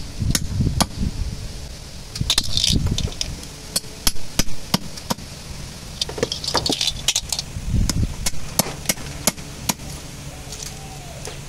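A large knife chopping the tips off snail shells on a wooden plank: irregular sharp knocks and cracks, about one or two a second, with low thuds of the blade into the wood. Twice there is a short rattle of snail shells clinking together.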